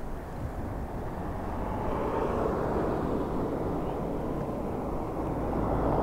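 Road traffic passing on a paving-stone street: tyre and engine noise of cars and a small van swells about two seconds in and again, louder, near the end as the van comes close, over a steady rumble of wind on the microphone.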